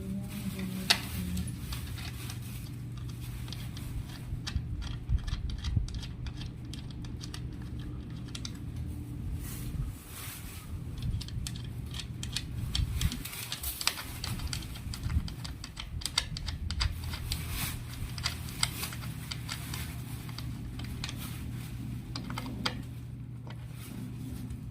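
Irregular small clicks, taps and rattles of flat-pack furniture parts being handled and bolts being turned with an Allen key, over a steady low hum.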